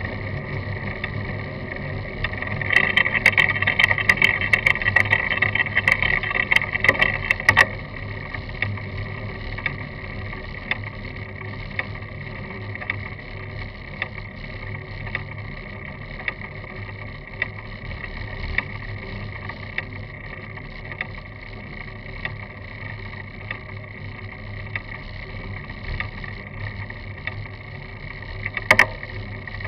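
A road bicycle rolling on coarse bitumen, heard through a camera mounted on its frame: steady tyre and road noise with the mount rattling and ticking. The rattling is louder from about three to eight seconds in, and there is a single sharp click near the end.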